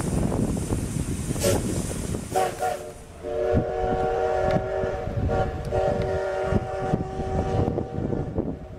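A train rumbles past for the first two seconds. Then the steam whistle of the JNR Class C12 (CK124) 2-6-2T steam locomotive sounds a long, steady blast that is held, with a couple of brief breaks, to the end.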